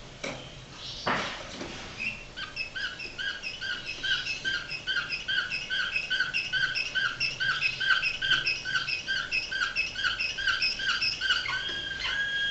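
Domestic canary singing a flute-like 'flawta' song: a long run of short, evenly repeated whistled notes, about two a second, that turns into a long held note near the end. A short knock sounds about a second in.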